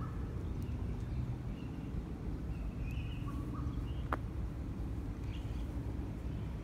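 Outdoor ambience: a steady low rumble with a few faint bird chirps, and a single sharp click about four seconds in.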